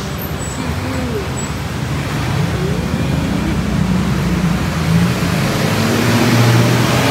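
Road traffic noise from a busy street, with a vehicle's engine hum growing steadily louder through the second half as it passes close.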